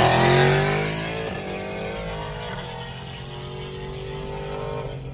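Jeep Grand Cherokee Trackhawk's supercharged Hemi V8 through a GThaus valved cat-back exhaust, winding down after a full-throttle exhaust pull: the note falls in pitch and fades over the first two seconds or so, then settles into a steadier, quieter engine and road drone.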